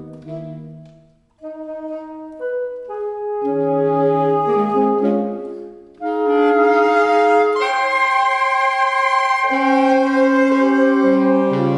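Saxophone trio (alto, tenor and baritone saxophones) playing classical chamber music. The sound fades nearly to silence about a second in, then the saxophones come in one after another on held notes, building to loud sustained chords from about halfway.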